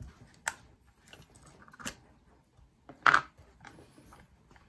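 Handling noise from a Mamiya C330 Pro twin-lens reflex camera as the cap over both lenses is taken off: faint rubbing and a few short clicks, the loudest about three seconds in.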